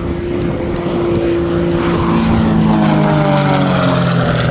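Aerobatic propeller plane's engine and propeller droning in flight, the pitch falling steadily from about halfway through as the sound grows a little louder.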